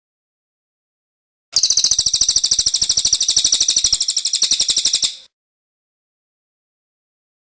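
A small songbird's rapid, high-pitched trill of fast repeated notes, lasting about three and a half seconds and set between silences, from a bird-song training recording.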